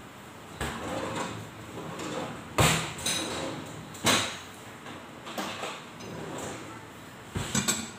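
Knocks and clatters of objects being handled, a few seconds apart, the loudest about two and a half seconds in and a quick run of three near the end.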